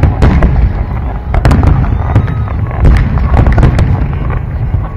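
Aerial fireworks bursting in rapid succession: many sharp bangs and crackles over continuous deep booming, loud and clipped on the recording.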